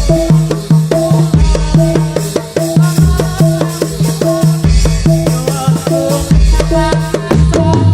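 Topeng Ireng dance accompaniment: drums and pitched percussion playing a fast repeating pattern over a low sustained tone.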